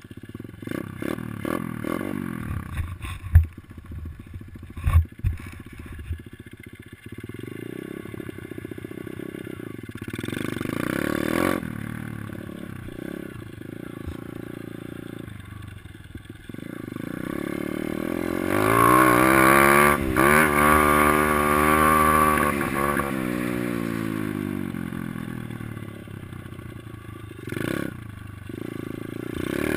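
Kawasaki KLX110L dirt bike's small single-cylinder four-stroke engine being ridden, the pitch rising and falling with the throttle, picked up from a helmet-mounted camera. There are a few sharp thumps a few seconds in. A longer, louder rev comes past the middle, climbing and then dropping away.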